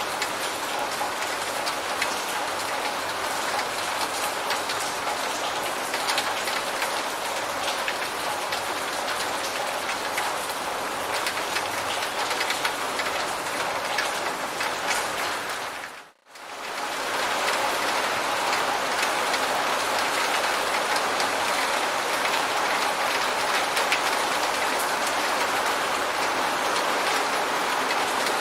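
Steady rain falling, dense with small drop impacts. About sixteen seconds in, the sound briefly fades almost to silence, then fades straight back up.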